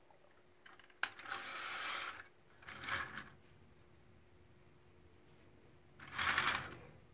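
Plastic brick-built model tank pushed by hand across a tabletop, its tracks and road wheels rattling and scraping in three short runs. A sharp click comes about a second in, just before the first run.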